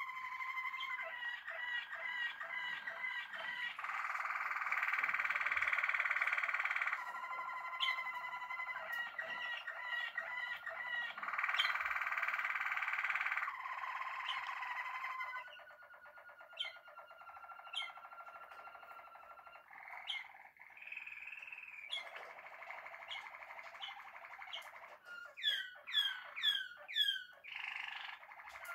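Caged canaries singing: long rolling trills and rapid repeated chirped notes, growing quieter partway through. Near the end comes a run of four loud sweeping notes.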